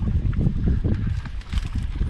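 Low, irregular rumbling and knocking from wind buffeting the microphone, with bumps as the camera moves through dry reeds.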